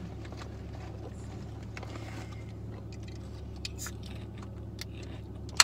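Small clicks, crinkles and chewing from snacking over a steady low hum inside a car cabin, with one loud sharp click near the end.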